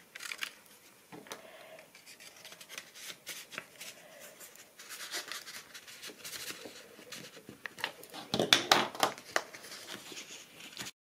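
Paper rustling and rubbing as a trimmed strip of patterned paper is handled and worked into a paper pocket of a folio. There are light scattered crinkles and taps, with a louder stretch of rustling about eight to nine seconds in.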